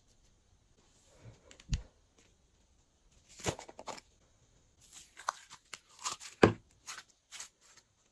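Glossy slime being worked by hand: irregular sticky pops, crackles and tearing sounds. There is a single pop about two seconds in, a burst a little later, and a dense cluster in the second half, loudest a little past six seconds.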